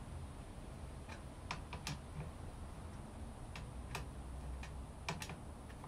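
Light, scattered clicks and taps of hand tools and metal or plastic parts being handled while a chainsaw is reassembled, coming unevenly in small clusters about nine times.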